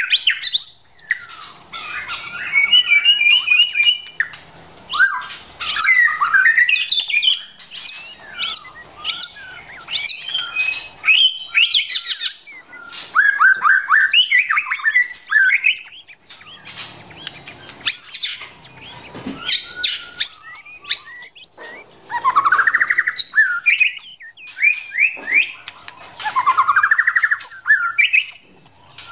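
White-rumped shama calling and singing: a fast, varied run of clear whistles, chirps and harsh chattering notes. Twice near the end comes a longer rising, rattling trill.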